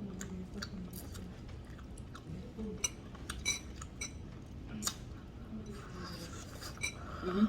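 Someone chewing a mouthful of food, with a few short, light clinks of cutlery against dishes spread through it.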